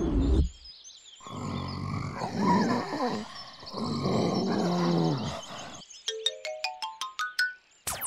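Cartoon animal growling and grunting in rough, wavering bursts for about six seconds over background music. Near the end, a quick run of rising plucked notes, then a falling whistle glide.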